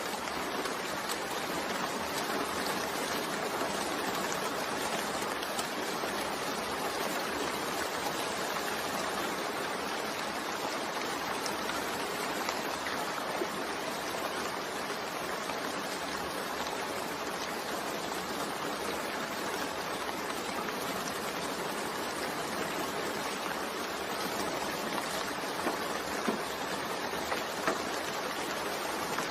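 Steady rain, an even hiss of falling drops, with a few faint drips standing out near the end.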